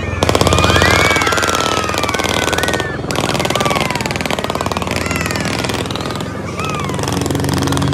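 Helicopter rotor beating in a fast, even chop, loud and close, with voices calling out over it. The chop breaks off for a moment about three seconds in.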